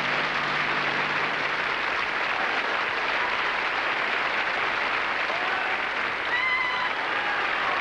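Studio audience applauding steadily at the end of a musical number. The band's last held note dies away under the clapping in the first two seconds.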